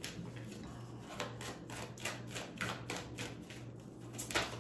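A deck of oracle cards being shuffled by hand: a run of soft, quick clicks as the cards slap together, about three a second.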